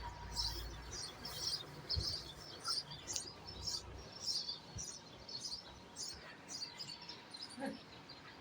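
Small birds chirping steadily, short high chirps about two a second, with a faint low rumble in the first few seconds.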